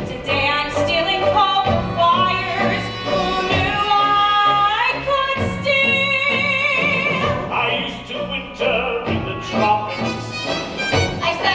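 A show tune from a stage musical: a sung melody with long held notes, over instrumental accompaniment with a regular bass pulse.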